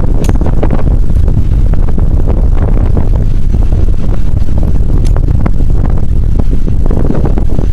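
Wind buffeting the microphone: a loud, steady low rumble with no clear pitch.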